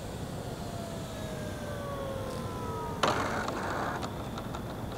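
Electric motor and propeller of an RC Super Decathlon model plane whining on reduced throttle, its pitch falling slowly as it comes in to land. About three seconds in there is a sudden loud rush of noise as the wheels touch down and roll on the paved runway, then a few light clicks.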